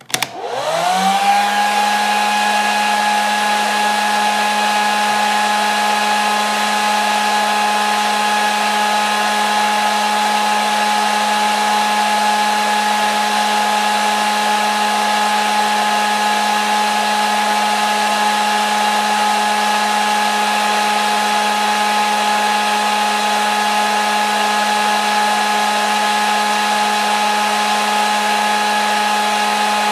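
Hair dryer switched on: its motor spins up over about the first second, then runs steadily, a high whine over a rush of blown air.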